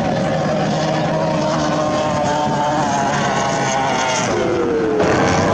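Formula 1 race powerboats' V6 two-stroke outboard engines running at high speed as the boats pass. The engine note drops in pitch about four seconds in, then the sound changes suddenly near the end.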